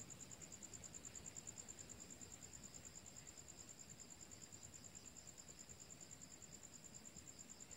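Faint, steady high-pitched trill of crickets at night, pulsing rapidly without a break.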